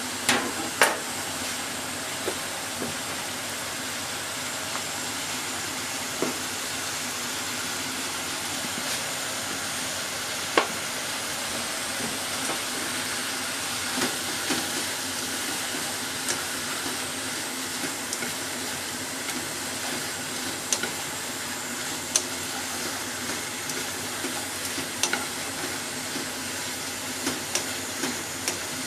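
Bacon and eggplant slices sizzling steadily in hot oil in a pan while being stirred and turned with a wooden utensil, which knocks against the pan in occasional sharp clicks.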